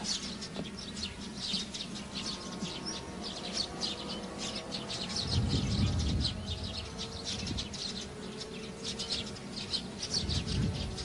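Small birds chirping steadily outdoors, with a brief low rumble about five seconds in.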